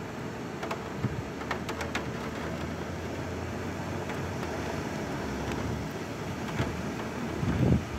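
Thunderstorm rain and wind, a steady rushing noise, with a few sharp ticks between about one and two seconds in.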